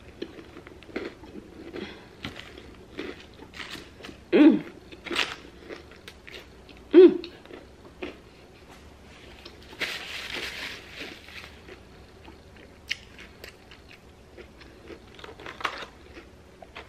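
Close-miked chewing and crunching of a Whopper burger topped with crushed Hot Cheetos, with a couple of short hummed "mm"s. About ten seconds in comes a brief rustle of paper.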